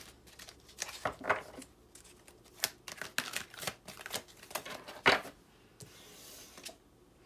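A Dreams of Gaia tarot deck being shuffled by hand: a run of quick card clicks and flicks, the loudest a sharp snap about five seconds in. A soft sliding hiss follows as a card is drawn out and laid on the table.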